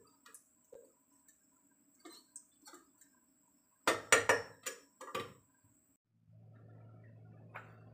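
A plastic rice paddle scraping and knocking against the inner pot of a rice cooker as cooked rice is stirred, with a burst of loud knocks and clicks about four to five seconds in. After about six seconds a steady low hum begins.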